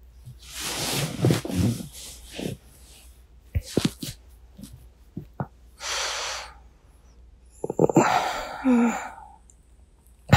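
Sleepy breathing and sighs close to a binaural microphone, several drawn-out breaths, mixed with soft bedding rustles and a few small clicks in the middle. Near the end a breath carries a brief low voiced tone.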